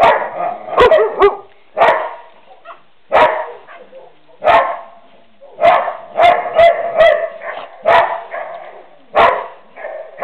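A dog barking over and over, roughly once a second, with some barks coming two or three in quick succession.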